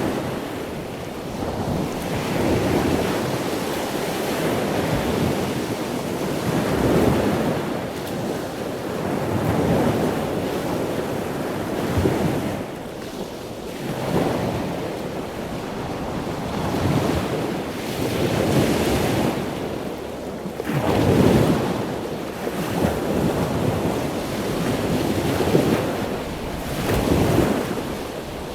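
Ocean surf: waves breaking and washing ashore one after another, a steady rushing that swells and falls back every two to three seconds, with the loudest surge a little past the two-thirds mark.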